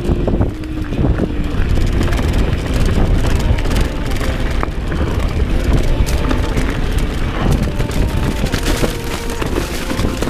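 Mountain bike descending a dirt singletrack at speed: strong wind buffeting the microphone, with tyre noise on the dirt and frequent clicks and rattles from the bike over bumps.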